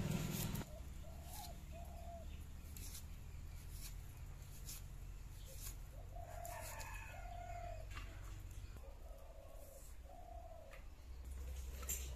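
A chicken calling several times in short, arched notes, mostly in pairs. Scattered faint clicks come from a knife peeling onions.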